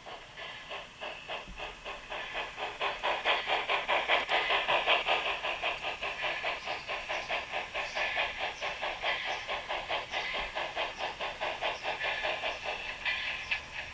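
Garden-railway model steam locomotive's sound module playing recorded exhaust chuffs of the Ballenberg steam railway's HG 3/3 rack locomotive. The chuffs are rapid and even, several a second, with hiss, and grow louder over the first few seconds.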